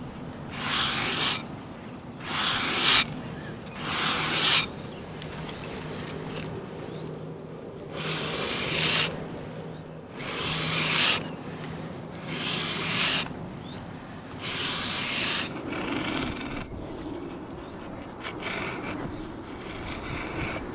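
Knife blade drawn along the fine side of a soft nail file in seven long scraping strokes of about a second each, with short pauses between them: a quick touch-up of a convex-ground edge. The strokes stop after about fifteen seconds, leaving only fainter, duller sound.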